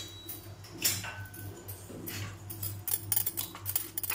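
A metal spoon clinking and scraping against a stainless-steel bowl while thick batter is stirred. There are a few separate clinks at first, then a quick run of clinks over the last second or so.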